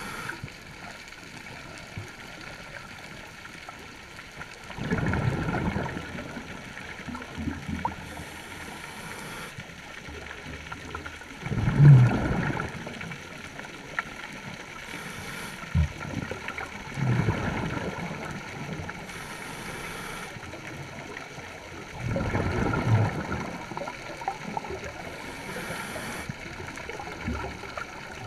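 A scuba diver breathing through a regulator underwater: a short hiss of inhalation, then a couple of seconds later a gurgling rush of exhaled bubbles, repeating about every five to six seconds.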